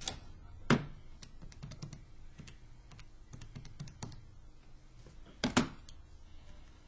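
Keys of a Texas Instruments graphing calculator being pressed in quick succession, a string of small plastic clicks. A louder knock comes about a second in and a double knock near the end as the calculator is handled against the table.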